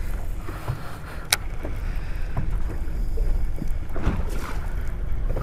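Steady low rumble of wind and water around a fishing boat on open water, with one sharp click about a second in.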